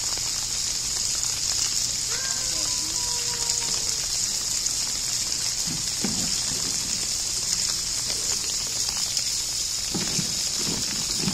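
Steady hiss of rain falling, even and unbroken.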